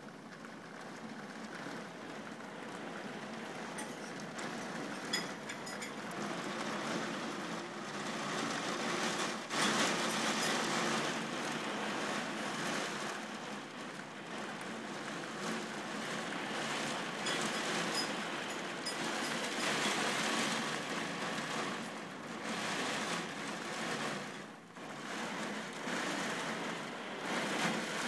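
Heavy rain pouring down, a steady hiss that grows louder about ten seconds in and dips briefly near the end.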